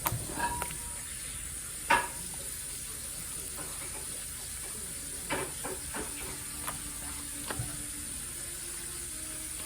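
Homemade slime being squeezed and kneaded by hand: scattered wet clicks and pops.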